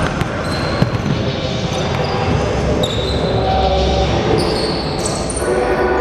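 Basketball game play on a hardwood gym floor: a ball bouncing and sharp knocks, with short high sneaker squeaks from players running.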